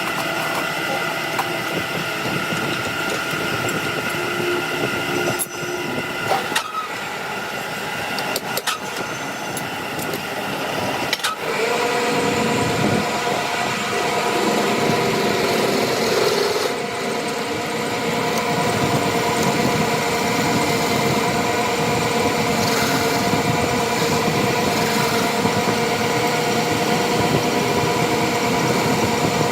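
A motor or engine running steadily, with a few sharp clicks about 5 to 11 seconds in, then settling into a steadier, fuller hum from about 12 seconds.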